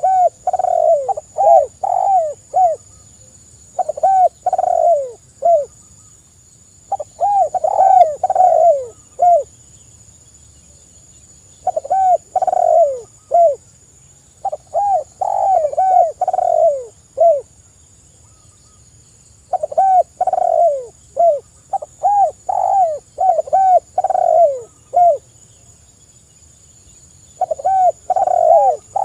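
Spotted dove (tekukur) cooing: repeated phrases of four to eight quick, falling coos, a phrase every few seconds.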